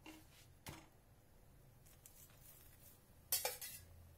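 A metal spoon clinks and scrapes briefly about three seconds in as ghee is spread on a paratha on the tawa, after a faint tap under a second in; otherwise quiet room tone.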